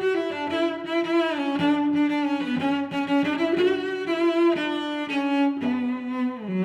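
Background music led by bowed strings, with cello-like sustained notes that move from one pitch to the next.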